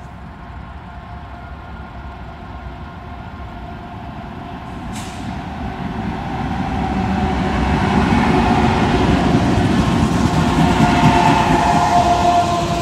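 Norfolk Southern diesel locomotives leading an intermodal freight train approach and pass, growing steadily louder over the first eight seconds or so. Engine rumble and wheel-on-rail noise follow as the double-stack container cars start rolling by.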